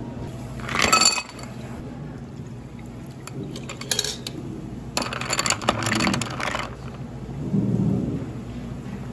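Ice cubes clattering into a tall glass in a short, loud burst. Then sparkling water is poured from a can over the ice, with a fizzing, crackling hiss for a second or two.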